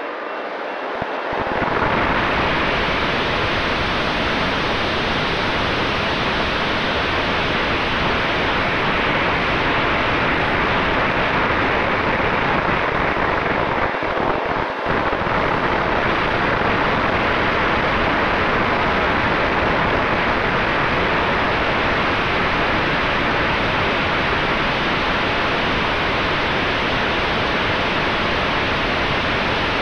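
Steady rushing wind noise over the onboard camera's microphone of a fast-flying RC plane, with a faint steady tone underneath. It swells about a second and a half in and dips briefly near the middle.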